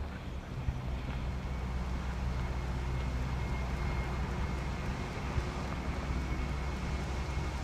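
Steady low rumble of distant road traffic, with a faint high steady tone through most of it.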